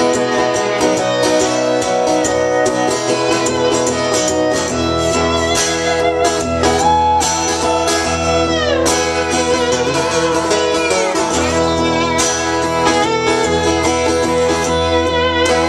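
Instrumental break of a country song: a lap steel guitar plays sliding, gliding melody lines over a strummed acoustic guitar.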